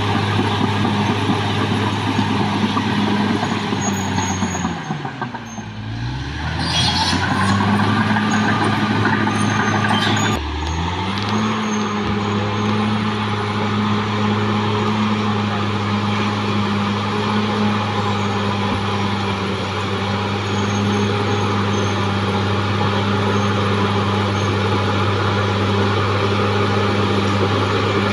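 Caterpillar D6R XL bulldozer's diesel engine running steadily. About five seconds in its speed falls sharply and climbs back, with a few sharp clanks. Near ten seconds it dips again briefly before settling back to a steady run.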